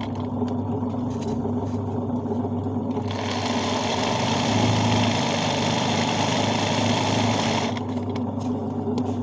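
Motor-driven sewing machine doing hand-guided embroidery: a steady motor hum throughout, with the fast stitching clatter of the needle running from about three seconds in and stopping near the end.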